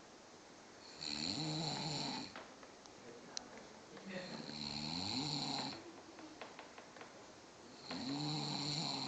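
A sleeping man snoring: three long snores about three and a half seconds apart, each with a wavering pitch, and quieter breathing between them.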